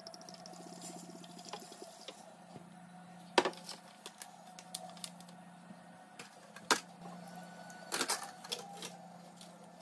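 Red wine pouring from a bottle into a stainless-steel pot over the first couple of seconds, followed by a few sharp knocks and clicks, over a steady low hum.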